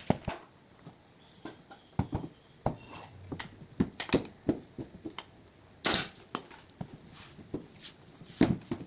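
Irregular sharp clicks and knocks from hand work, with a louder, longer rasping burst about six seconds in.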